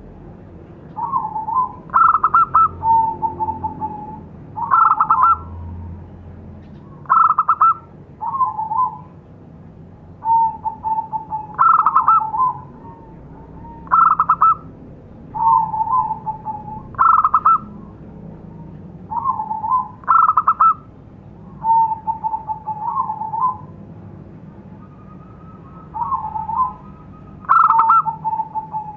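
Zebra dove (perkutut) singing: short stuttering phrases of quick coos that come every two to three seconds, with softer, lower drawn-out notes between them.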